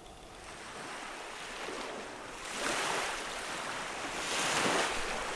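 Small waves washing onto a stony beach. The wash is faint at first, then swells twice.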